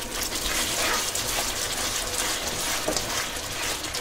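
Wooden spatula stirring thick tamarind and jaggery chutney as it simmers in a pan: a steady wet churning sound with faint scrapes.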